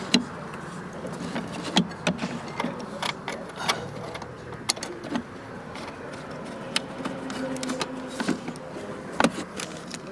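Scattered light clicks and taps of a screwdriver and small screws being handled and started into the radio tray under the dashboard, at irregular moments over a steady low background.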